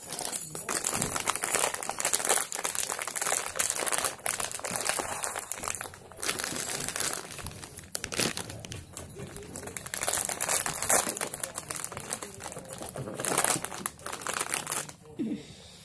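Bag of breadfruit chips crinkling as it is handled and opened, in runs of rustling with short lulls about six and eight seconds in, stopping shortly before the end.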